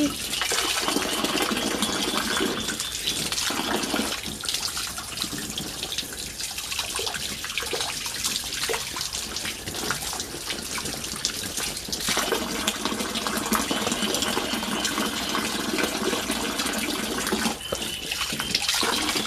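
Water pouring from a pipe into an inflatable paddling pool as it fills, splashing steadily where a child's hand is held in the stream.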